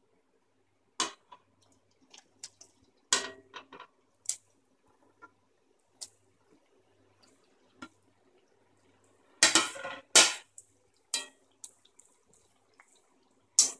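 Potato sticks going into hot oil in an aluminium kadai and being stirred with a metal ladle: scattered clatters of plate and ladle against the pan, with light spitting and dripping from the oil. The loudest clatters come about three seconds in and again around ten seconds in.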